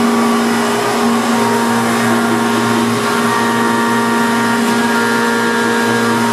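2000 Haas VF-3 vertical machining center running, a steady mechanical hum with a steady whine; higher whining tones join about a second and a half in.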